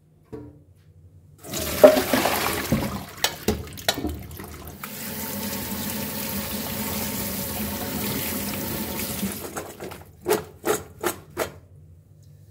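Water splashing into a stainless-steel sink as soaked potato sticks are drained into a colander, then tap water running steadily over the potatoes to rinse off the starch. Near the end come four quick splashy shakes of the colander to drain it.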